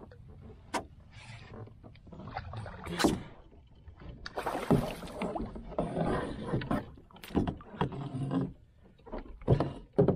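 Irregular bursts of water splashing and sloshing around a canoe, mixed with knocks and rustling from handling in the boat.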